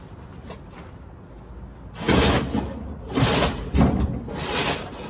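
Four loud scraping, rattling noises in quick succession, from things being moved and knocked about.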